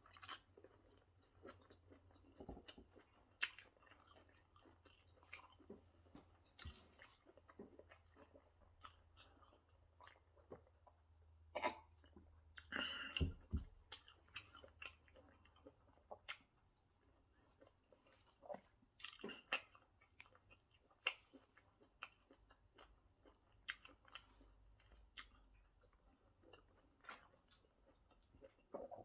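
Close-up mouth sounds of a person eating pounded yam (fufu) with egusi soup: soft chewing with scattered wet lip smacks and clicks, busiest and loudest about halfway through.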